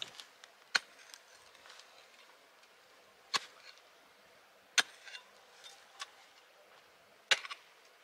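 A hand hoe chopping into stony ground: four sharp strikes, irregularly spaced a second or two apart, with a few fainter knocks between.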